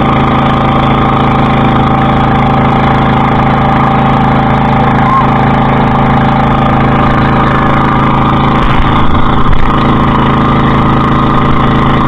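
Engine of a motorized outrigger banca running steadily under way, an even drone, with a few brief louder bumps about nine seconds in.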